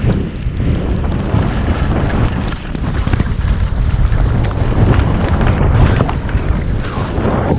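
Loud wind buffeting the microphone of a camera on a skier moving at speed down a groomed run, with skis sliding and scraping over the snow underneath.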